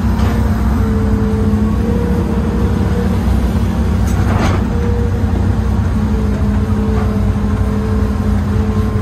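Old Hitachi excavator's diesel engine and hydraulics running under working load, heard from inside the cab: a steady low rumble with a constant whine on top. A short hiss comes about four and a half seconds in.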